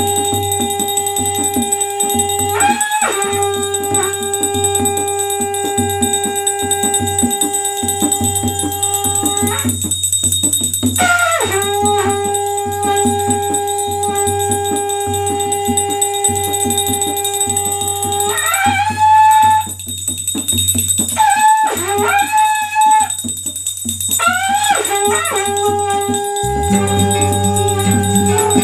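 Devotional bhajan-kirtan: a dholak hand drum is beaten in a steady rhythm with jingling percussion. Over it run long held sung notes, each lasting several seconds, that bend up into pitch where they begin.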